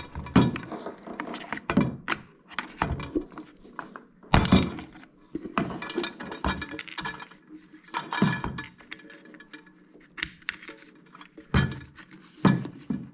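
Irregular clinks, clatters and knocks of a garbage disposal unit being handled, with its knocked-out dishwasher inlet plug loose inside it. The louder knocks come about half a second in, around four and eight seconds in, and near the end.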